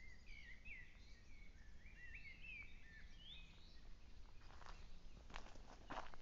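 Faint chirping and twittering of small birds, quick rising and falling notes, through the first three seconds or so. From about four seconds in, a series of crunches and rustles as someone walks through dry undergrowth.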